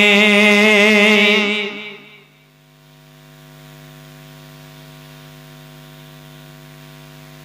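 A man's voice holding a long, wavering chanted note that stops about two seconds in. After that only a steady electrical mains hum remains.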